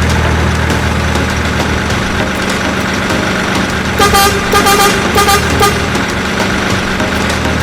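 Truck engine idling steadily, with a truck horn honking in a quick series of short toots about four seconds in.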